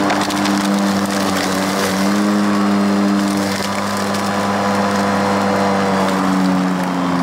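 Hart 21-inch 40-volt brushless battery push mower running, its blade motor giving a steady hum whose pitch shifts slightly a couple of times as it cuts through tall grass and weeds. Over the hum is the noisy rustle and crackle of the cut grass.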